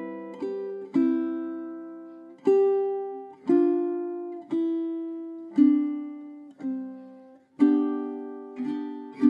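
Solo ukulele in low-G tuning playing a slow instrumental. Notes and chords are plucked about once a second, each left to ring out and fade.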